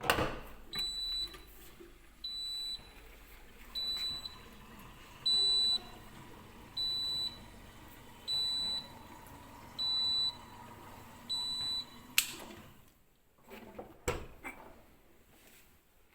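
Siemens dishwasher's electronic beeper sounding a short, high single-tone beep about every one and a half seconds, eight times, over a faint steady hum. About twelve seconds in there is a sharp click and the hum stops.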